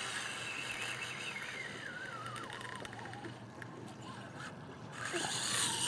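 Drag of a Shimano Stella 18000 spinning reel whining as a hooked bluefin tuna pulls line off on a run. The whine slides down in pitch over the first few seconds, then rises again near the end as the fish surges.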